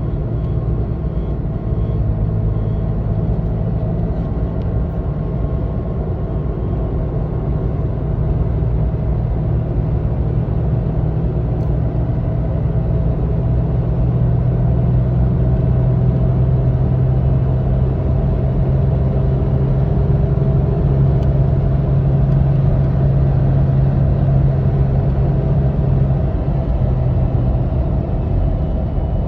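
Low cyclic humming noise from a lifted 2016 Toyota Tacoma TRD Sport driving at 40–60 mph, a steady hum over road and tyre noise that grows louder about halfway through and eases near the end. The cause is unknown: the owner first suspected the driveshaft needle bearing because of the 4-inch lift, but the noise remains after fitting an ECGS bushing.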